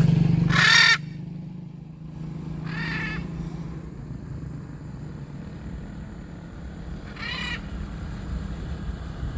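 Macaw squawking three times, each harsh call under a second long: about half a second in, about three seconds in and about seven seconds in. A steady low engine hum is loudest at the start and drops away about a second in.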